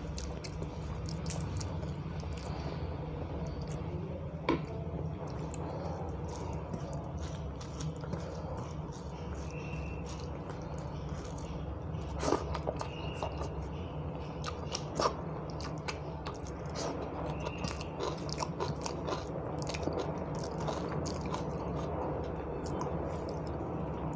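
A person chewing mouthfuls of rice and dal eaten by hand and mixing the soft rice with the fingers on a stainless steel plate. A few sharp clicks stand out, the loudest about a third and two thirds of the way in. A steady low hum runs underneath.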